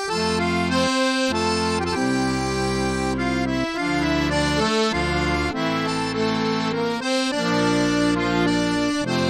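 Instrumental background music: a tune of sustained chords over a bass line that changes every half second to a second.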